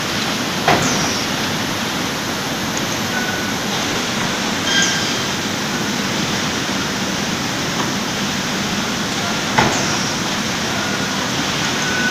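Steady running noise of an automatic carton packing line, with its conveyors and case-packing machine working, and sharp mechanical clacks a little under a second in and again near the end.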